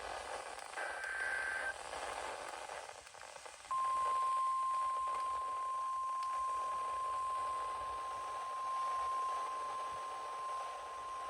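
NOAA Weather Radio emergency broadcast: a short buzzy digital data burst ends near the start, then about 4 s in a single steady high tone, the 1050 Hz warning alarm tone, comes on and holds. It signals that a new warning is about to be read. Light radio hiss runs underneath.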